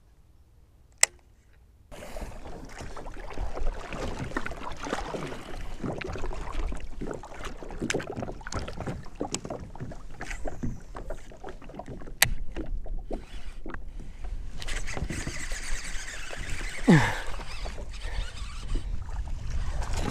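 Water sloshing and knocking against a fishing kayak's hull, with scattered sharp clicks. It is nearly silent for the first two seconds apart from one click, and a short falling squeak comes about three seconds before the end.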